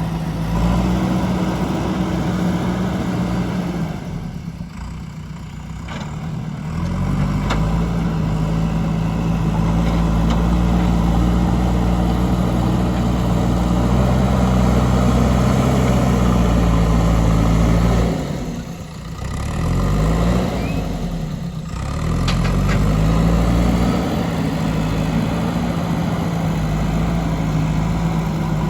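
Diesel engine of a JCB 3DX backhoe loader running hard under working load. It drops back toward idle about four seconds in and revs up again, then dips twice more before two-thirds of the way through and climbs back each time.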